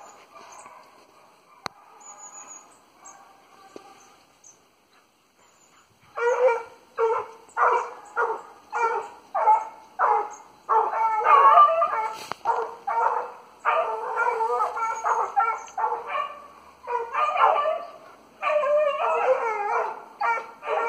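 Hunting dogs baying. The calls are faint at first, then from about six seconds in come as a steady run of about two a second.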